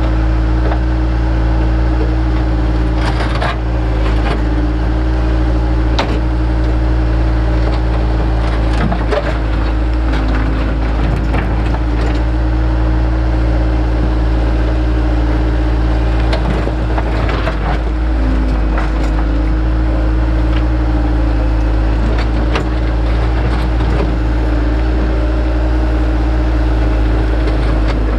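Engine of digging machinery running steadily, with irregular scraping and clunking of broken rock.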